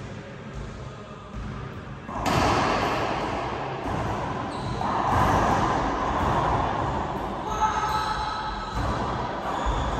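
Racquetball rally: the hollow rubber ball is struck by racquets and smacks off the court walls, each hit ringing out in the enclosed court's echo. The play starts sharply about two seconds in and grows louder again about halfway through.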